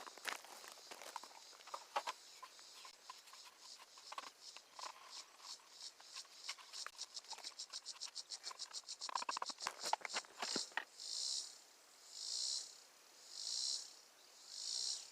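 Faint insects calling: a high pulsed chirping that quickens, then gives way about two-thirds in to a call that swells and fades roughly once a second. A few light clicks and taps sound over it, with a short cluster of knocks about two-thirds through.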